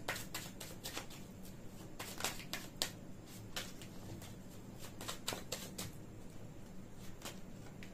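Tarot deck being shuffled by hand: a run of soft, irregular card clicks and slaps.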